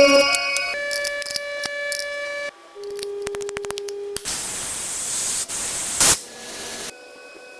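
A string of short, abruptly cut workshop sounds: steady hums, then a quick run of clicks over a steady tone, then a hiss lasting about two seconds that ends in a sharp burst, then a fainter hum.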